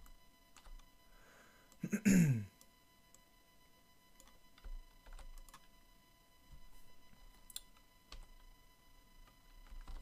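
Scattered, faint computer keyboard keystrokes, with one short vocal sound falling in pitch about two seconds in.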